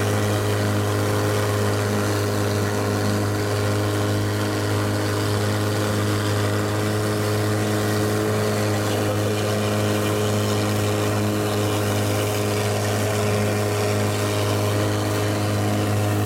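Longtail boat's engine running at a steady speed, a loud even drone with no change in pitch.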